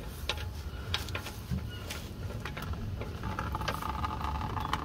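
Fingers turning out the sump drain plug of a Rover P6 V8 engine, with small clicks and scrapes of the plug on its threads. About three seconds in, a thin stream of water starts trickling from the sump into a drain pan: water in the engine oil, the sign of a badly damaged engine.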